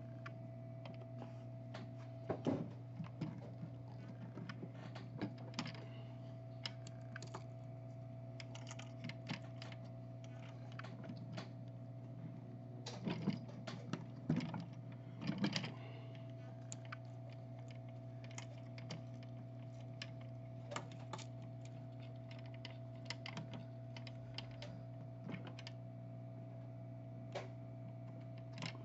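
Scattered light clicks and taps of small tools handling a phone circuit board, louder in a cluster a couple of seconds in and again around the middle, over a steady low electrical hum with a faint thin whine.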